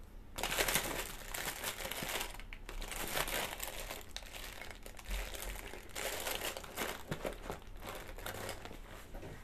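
Continuous crinkling and rustling of something being handled, made of many small crackles, starting abruptly about half a second in.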